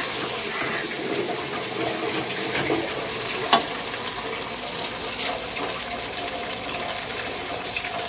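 Water running steadily from a tap. About three and a half seconds in there is one sharp knock against the pot.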